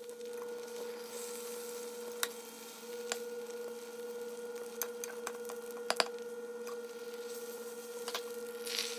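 Steady electrical hum of a few fixed tones, likely a kitchen appliance, with scattered light taps of a utensil and faint sizzling in a frying pan as a rolled egg omelette cooks.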